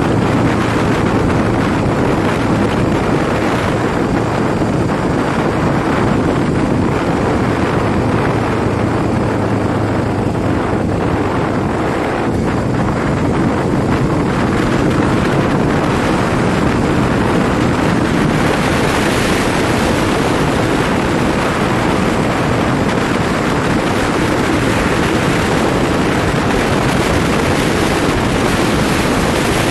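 Wind rushing over the microphone while riding a Tufan Istiqlal 250 motorcycle, with the bike's engine running steadily underneath. The wind hiss grows stronger and brighter a little past halfway.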